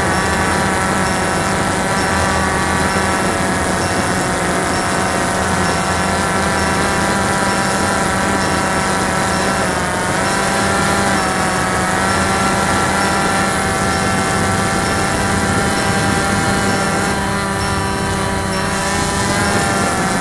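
Cheerson CX-20 quadcopter's electric motors and propellers whining steadily, heard close up through the drone's own camera. About halfway through, the pitch dips and rises as the motors change speed.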